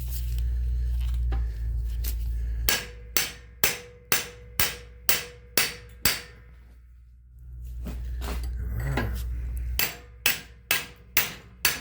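Hammer blows on a seized brake caliper slide pin in a Subaru Impreza rear brake bracket, struck to break it loose: a run of about eight sharp metallic strikes, roughly two a second, then after a pause a second quicker run of about six. A low rumble fills the start and the pause between the runs.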